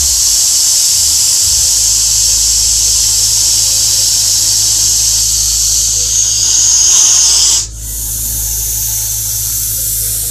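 Russell's viper hissing loudly and continuously, the hiss swelling briefly, breaking off sharply about three-quarters of the way through, and then starting again.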